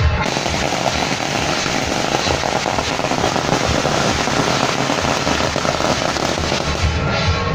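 A long string of firecrackers going off in a rapid, continuous crackle of pops, stopping near the end.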